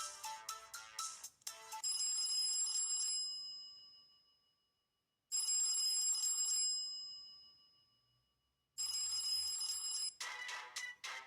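LG GW620 (Eve) mobile phone playing its built-in ringtones through its speaker: a quick melodic tune ends, then a telephone-bell-style ring sounds three times, each ring about a second long and then dying away, and a new melodic tune starts near the end.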